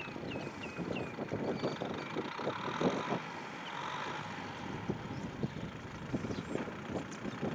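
Kubota M6040SU tractor's diesel engine running while it pulls a plow through a field, with irregular crackling and knocking throughout.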